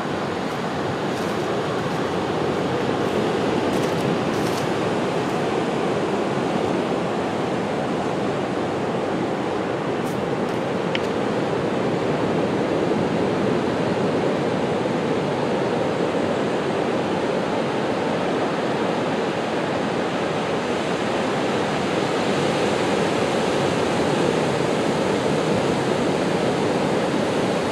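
Ocean surf breaking on a beach: a steady, continuous wash of waves that swells and eases slightly.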